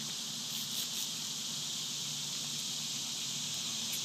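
Steady chorus of insects: a high, shrill hiss that runs on without a break.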